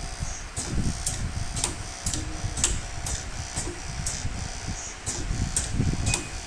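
Pneumatic cylinders of an LS-231 connector socket strength tester cycling in an automatic loop. Regular sharp clicks come about twice a second over a low rumble.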